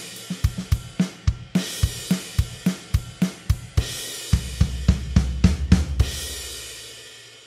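Programmed GarageBand drum kit (SoCal kit) playing a rock groove of kick, snare and hi-hat, with crash cymbal hits at the bar starts. About four seconds in it breaks into a run of six accented hits struck together on the kick, snare and another drum, then a last crash cymbal rings out and fades away.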